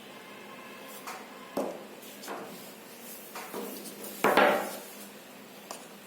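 A product box being handled on a table before it is opened: a few separate knocks and short scrapes, the loudest scrape about four seconds in.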